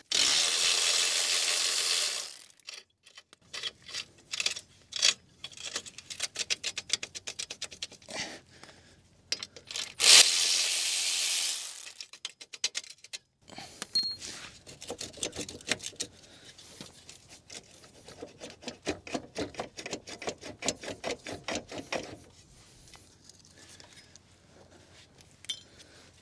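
Fasteners being undone with a power tool, which runs in two bursts of about two seconds each, at the start and about ten seconds in. Rapid clicking and light metallic rattling fill the gaps between and after the bursts.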